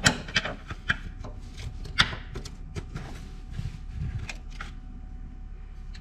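A thin metal pick clicking and scraping as it digs grease residue and dirt out of the grease-fitting access hole in a tractor's rubber floor pad: irregular sharp ticks with soft scrapes between them.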